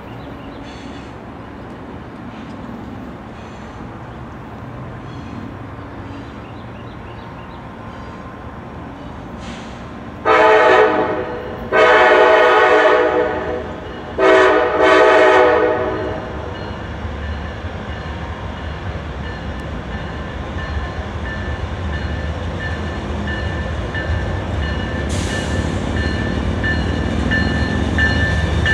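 Air horn of a CSX freight train's lead locomotive, an EMD SD40-3, sounding four blasts about ten seconds in: long, longer, short, long. Afterwards the low rumble of the approaching multi-locomotive consist grows steadily louder.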